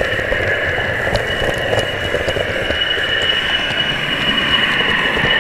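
Sound unit in a 4mm-scale model Class 40 diesel locomotive playing the running sound of its English Electric engine, with the class's high turbocharger whistle held steady throughout.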